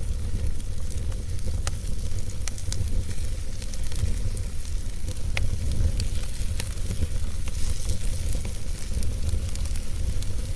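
Wood fire burning in a fireplace: a steady low rumble of the flames with a light hiss, and frequent sharp crackles and pops at irregular moments.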